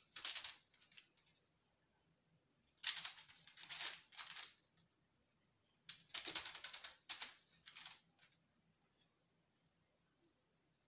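Small knife tip cutting through rolled cookie dough and scratching the parchment paper beneath, tracing a star shape: three spells of crisp scratching, the longest about two seconds, with quiet between them.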